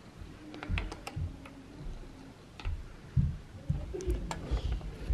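Scattered small clicks and knocks of a metal wrench and fork parts being handled on a bicycle suspension fork, with a louder dull thump about three seconds in.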